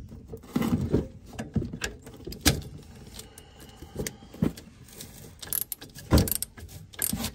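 Metal hand tools clinking and knocking irregularly against the truck's front shock mount, a socket being worked onto the top shock nut.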